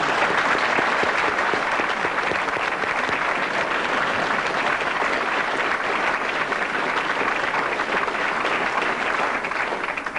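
Large audience applauding: dense, steady clapping that dies away near the end.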